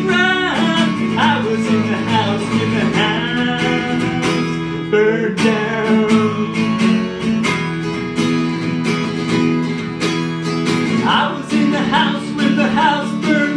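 Solo acoustic guitar strummed steadily, with a man's singing voice joining at the start and again near the end.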